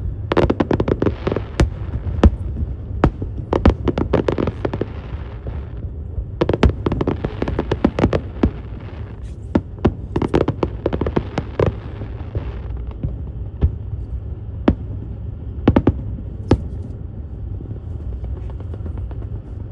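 Fireworks display: dense volleys of rapid bangs and crackling bursts, thinning out to scattered single bangs in the second half, over a steady low rumble.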